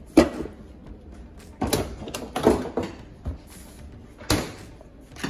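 Kitchen handling noises at an open refrigerator: a sharp bang just after the start, then several more knocks and clunks of the door and items being moved.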